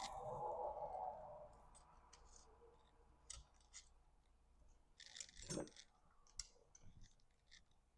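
Faint clicks and light taps of small launcher parts being handled during reassembly of a Beeman BP.50. A soft rustle fills the first second, one click comes about three seconds in, and a quick cluster of clicks comes about five seconds in.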